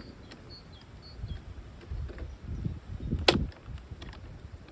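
Hand work on a battery pack: low bumping and rubbing as parts are shifted, with one sharp click about three seconds in and a few lighter ticks.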